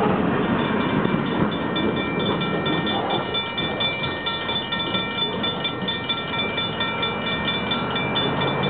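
Mixed freight train rolling past, cars rumbling and clattering over the rails, with a bell ringing rapidly and steadily over it.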